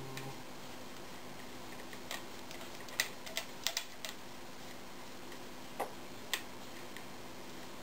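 Sparse, light clicks and taps of metal parts being handled as a star nut installer is worked down threaded rod in a bicycle fork's steerer tube: a cluster of about six between two and four seconds in, then two more a couple of seconds later.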